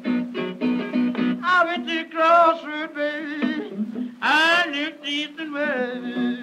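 Background music: a song with guitar and a sung voice.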